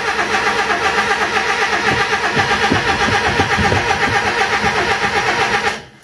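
Mazda B1800 pickup's starter cranking its carburetted engine with a steady, even churning rhythm, then cutting off abruptly near the end. The engine turns over without catching: it won't start after sitting parked for a year.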